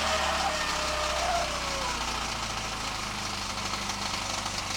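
VAZ-2109 (Lada Samara) inline-four engine running with a knock in it. Its speed drops over the first couple of seconds, then it settles into a steady idle.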